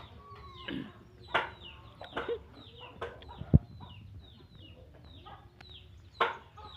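Chickens clucking, with a steady run of short, high, falling peeps and a few louder calls. A single sharp knock about three and a half seconds in is the loudest sound.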